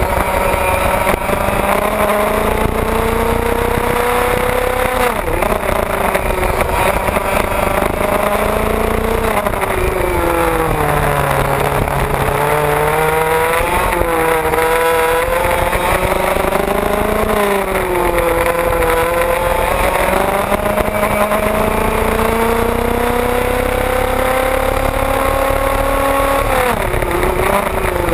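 IAME 125cc two-stroke kart engine heard onboard at race pace. Its pitch climbs steadily along each straight and drops sharply as the driver brakes for each corner, five times over, with several other karts running close by.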